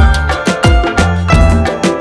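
Upbeat background music with a steady beat of drum hits over bass and pitched instrument notes.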